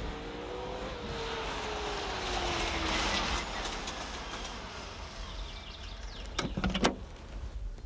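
A Wartburg 311's two-stroke engine slowing as the car rolls across an unpaved lot and pulls up, its note falling over a couple of seconds while the tyres crunch. A few sharp knocks come near the end.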